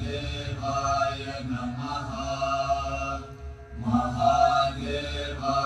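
Devotional chanting sung in phrases over a steady low drone, with a short break a little past halfway.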